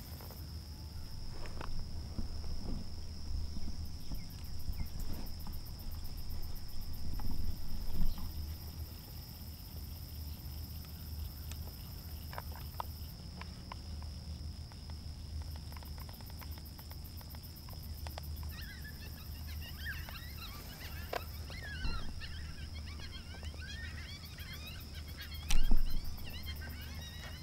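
Evening field ambience: a steady high insect drone over a low wind rumble. From about two-thirds of the way through, a flurry of high chirping calls joins it, and a sharp knock comes near the end.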